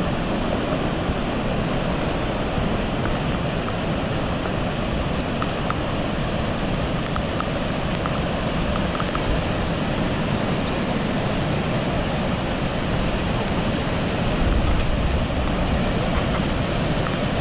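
Steady roar of Niagara Falls, a continuous rush of falling water, with wind rumbling on the microphone.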